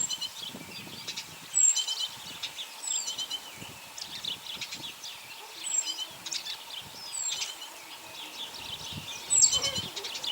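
Birds chirping, short high notes and quick falling calls repeating every second or so, loudest about one and a half seconds in and again near the end.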